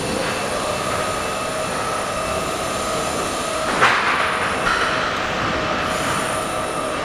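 Construction crane hoisting a load: a steady mechanical whine with a brief, louder rasp about four seconds in, after which the whine sits slightly higher.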